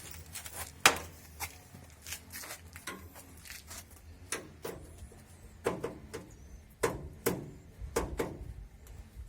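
Irregular clicks and knocks of tools and parts being handled while a washing machine is taken apart, with a sharp click about a second in and a run of heavier knocks in the second half.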